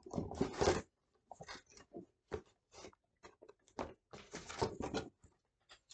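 Rustling and handling noises in short irregular bursts, the loudest in the first second, as baby food pouches are rummaged through in a box.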